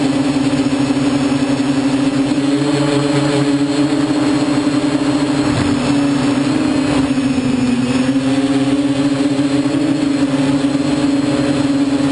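TBS Discovery quadcopter's electric motors and propellers humming steadily in flight, heard up close from the craft itself. The pitch dips briefly a little past halfway as the throttle eases, then picks back up.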